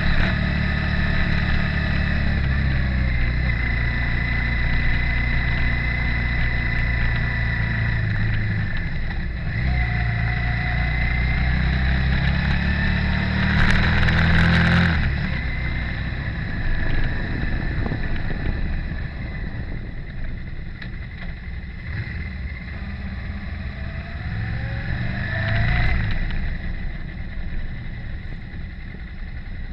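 Motorcycle engine running steadily while riding a dirt farm lane. About halfway there is a short loud rush of noise, after which the engine drops to a quieter, rougher sound with a brief rise in revs near the end.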